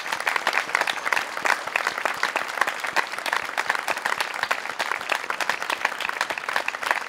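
A crowd applauding, with many hand claps overlapping into a dense, continuous sound.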